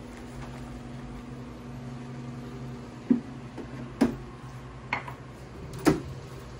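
Electric stand mixer motor running with a steady hum as it mixes flour into a yeast-dough batter, with four sharp knocks in the second half as flour is tipped in from a cup and the mixer's lid is brought down.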